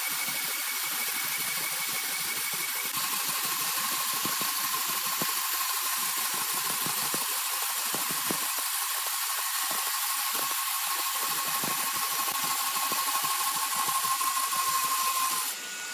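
Horizontal band sawmill blade running through a large green ironwood log: a steady high-pitched whine over a hiss. The whine drops to a lower pitch about three seconds in, and the sound breaks off just before the end.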